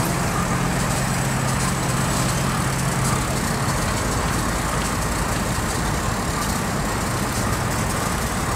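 Diesel locomotive engines running steadily under a loud, even noise of rail-yard machinery. A low hum drops away about three and a half seconds in.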